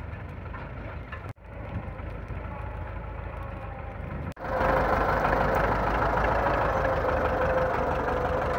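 Belarus MTZ-50 tractor's diesel engine running steadily at idle. The sound breaks off briefly twice, about a second and a half and four and a half seconds in, and after the second break it is louder, with a steady hum.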